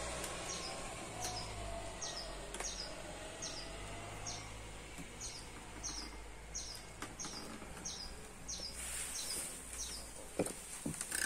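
A small bird calling over and over: a short, high, falling chirp about twice a second, over a faint steady high hiss. Near the end come a couple of sharp knocks.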